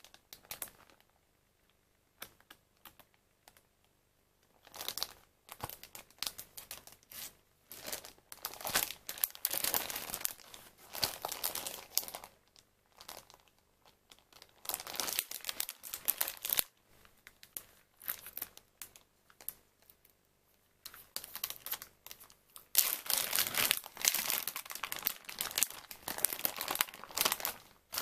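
Clear plastic film food packaging crinkling as hands handle it and pull it open, in irregular bouts with short pauses. The first few seconds are mostly quiet.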